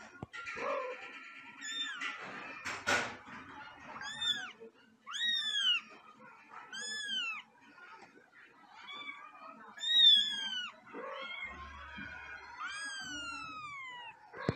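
A young kitten mewing repeatedly: about six high-pitched mews, each rising and falling, the loudest about ten seconds in. A sharp click sounds about three seconds in.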